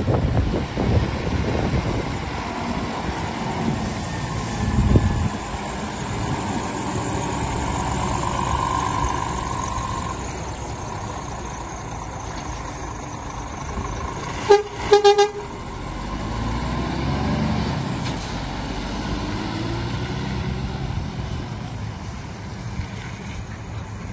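Scania R450 tractor unit's 13-litre six-cylinder diesel running as the truck drives slowly around the yard. About fifteen seconds in, its horn gives two short toots, the second a little longer.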